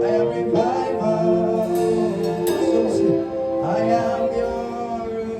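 Gospel worship song: a voice singing a wavering melody over held instrumental chords.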